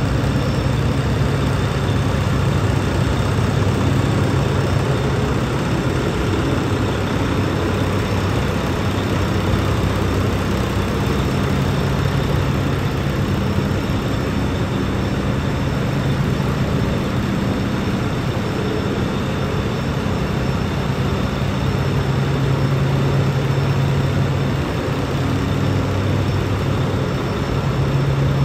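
Diesel engine of a 2011 Volvo VNL truck tractor idling steadily, with an even low hum.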